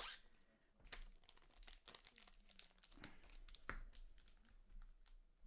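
Faint crinkling and rustling of foil trading-card pack wrappers and cards being handled, with scattered light clicks.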